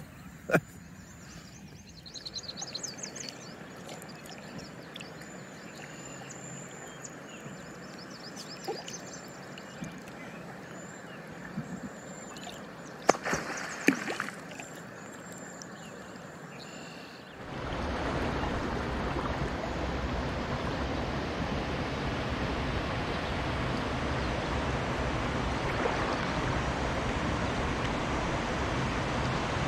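Water sloshing and trickling around a kayak, with high chirps and a few sharp knocks. A little past halfway a steady, louder rushing noise suddenly takes over.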